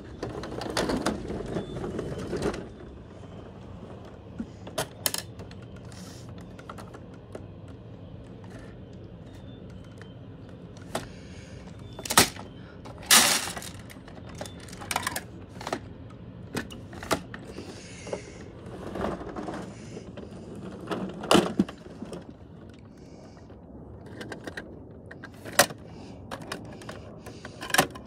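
Plastic toy garbage trucks handled by hand: a longer rolling rush in the first two seconds as a truck is pushed over wooden boards, then scattered clicks and knocks as the side-loader's plastic lifting arm grips and lifts small toy wheelie bins and they are set down.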